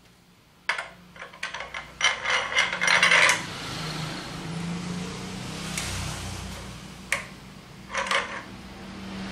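Metal clanks and rattles as the steel upper frame of a mini manual die-cutting press is lowered onto its guide posts, loudest a couple of seconds in. Two more single knocks follow near the end as the parts are adjusted.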